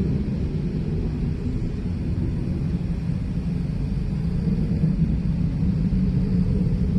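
Loud, deep rumble in the sky, steady with a slight swell in the second half. The recordist hears thrusters in it and insists it is not a jet.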